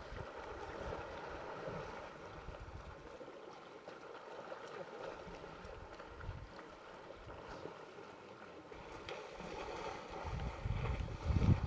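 Wind buffeting the microphone over faint open-bush ambience, in irregular low gusts that ease off in the middle and grow stronger near the end.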